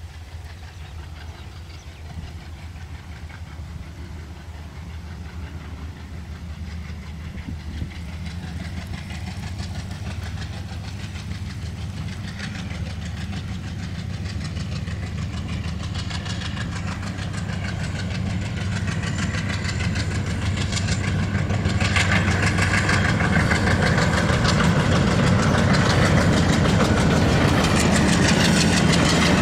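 An ALCO diesel locomotive's engine working under power, growing steadily louder as the train approaches. Over the last several seconds a loud rattle of wheels on rail from the passing coaches builds on top of it.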